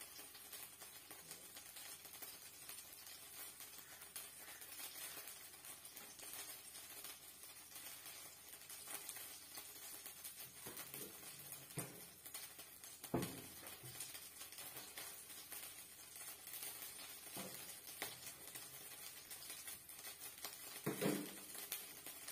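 Clam shells clinking and knocking against a steel bowl as cooked clams are tossed by hand in cornstarch, a few scattered knocks over a faint steady hiss; the loudest knocks come about 13 and 21 seconds in.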